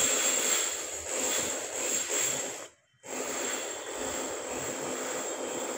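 Outdoor background noise: a steady hiss with a faint high whine. It drops out to silence for a moment about halfway through.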